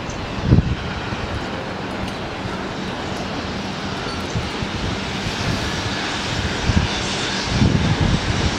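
Train running past with a steady rushing rumble, with low thumps just after the start and again in the last second.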